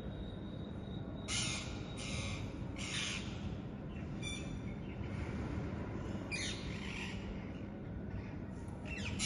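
Parrots giving harsh, screechy calls, a few in quick succession and then a couple more after a pause, over a steady low background rumble.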